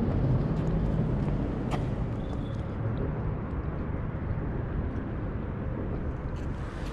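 Steady low outdoor rumble, with a single sharp click about two seconds in.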